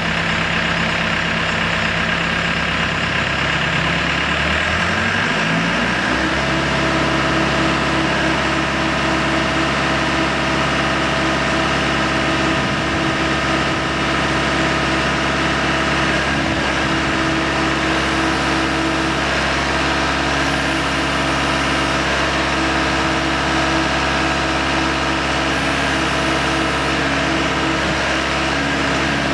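The engine and hydraulics of a K40 short-mast micropile drill rig's power unit running steadily while the drill head is raised and lowered on the mast. About four seconds in, the engine's pitch rises and then holds at the higher speed.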